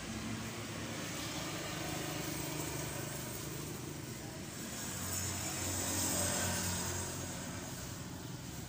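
Steady background noise of road traffic, with one vehicle passing that swells to its loudest about six seconds in and then fades.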